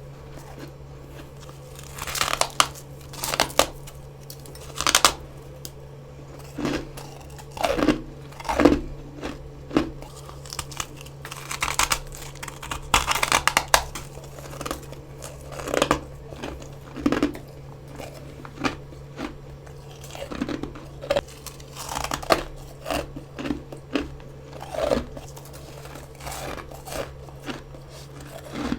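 Close-up crunching bites and chewing of soft, powdery freezer frost formed from humidifier moisture. The crunches come in a string starting about two seconds in, with a steady low hum underneath.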